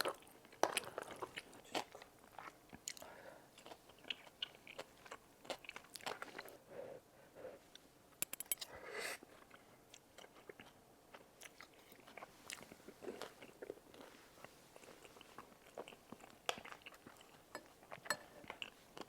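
Close-miked chewing of a soft cheese dumpling with tteokbokki, with irregular wet mouth smacks and clicks.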